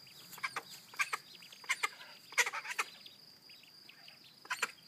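Call ducks giving short, sharp quacks, mostly in pairs, several in the first three seconds, then a pause, and another pair near the end.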